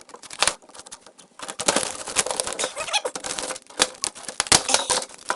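Rapid, irregular clicking and crackling of the compact camera's small plastic and metal parts being broken and pulled apart, with a short lull about a second in.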